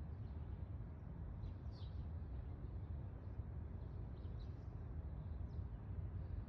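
A steady low rumble with faint, short, high chirps scattered through it, a few every couple of seconds.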